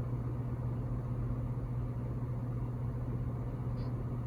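A steady low hum under a faint hiss, with no change throughout.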